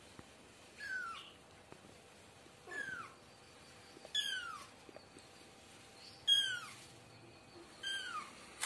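A kitten meowing five times, each a short call that falls in pitch, spaced a second and a half to two seconds apart; the fourth is the loudest.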